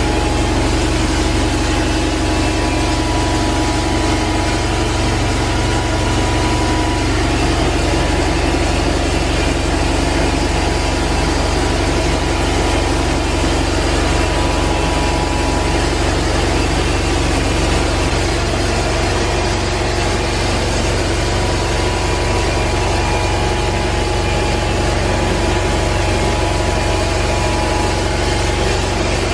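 Rotovac 360i rotary carpet extractor running steadily: the constant whir of its spinning head and suction as it extracts water and cleaning solution from the carpet, with a few steady hums over an even rushing noise.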